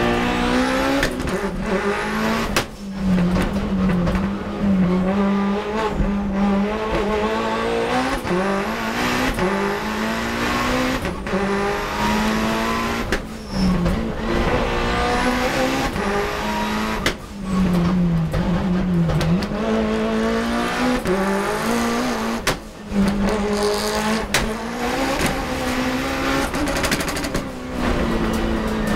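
Race car engine heard from inside the cockpit at full throttle. The engine note climbs through each gear, then drops back at the shifts, with several brief cuts in the sound as the driver shifts or lifts.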